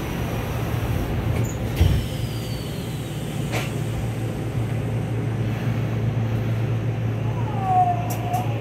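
Yokohama Municipal Subway 3000R car standing at the platform with a steady low hum from its onboard equipment. The sliding doors thud shut about two seconds in, and a sharp click follows a couple of seconds later.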